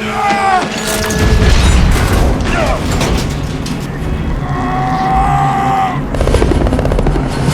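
Action-film sound mix: deep booms and a heavy low rumble, with long groaning, screeching metal tones and a music score underneath; a burst of sharp hits comes near the end.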